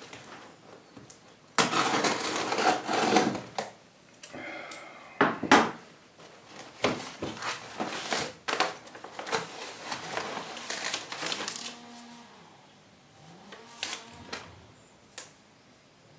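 A cardboard box being opened by hand: scissors cutting the packing tape, the box handled and its flaps pulled open, and brown paper packing and a paper note rustling. The loudest handling noise comes about two seconds in, with a run of sharp scrapes and crackles through the middle and quieter rustling near the end.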